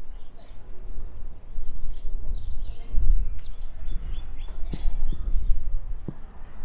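Small birds chirping in short repeated calls over a steady low rumble of wind and riding noise from the moving bike. Two sharp clicks come in the second half.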